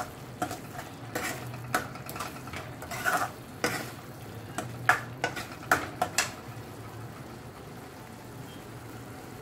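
Steel ladle scraping and clicking against a metal kadhai as thick chhole masala is stirred, the strokes stopping about six seconds in. Under it the masala sizzles softly as it fries, its oil beginning to separate.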